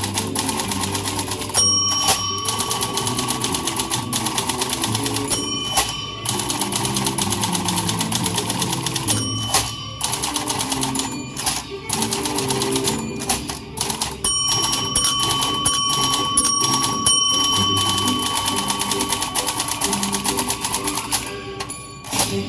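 Typewriter played as a percussion instrument: rapid, rhythmic keystroke clicks with bell dings ringing out now and then, broken by a few brief pauses. Low pitched notes of a musical accompaniment run underneath.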